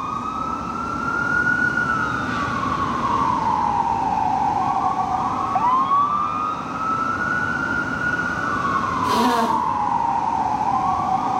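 Fire apparatus siren sounding a slow wail, each rise taking about a second and a half and each fall several seconds, repeating about every five seconds over a low engine rumble. A short burst of noise cuts in about nine seconds in.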